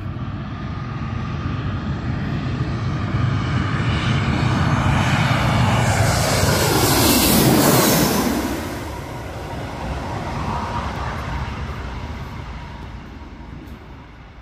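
Twin-engine Airbus A320-family jet airliner on landing approach, gear down, passing low overhead. Its engine noise builds, peaks about seven seconds in, drops in pitch as it passes, then fades away.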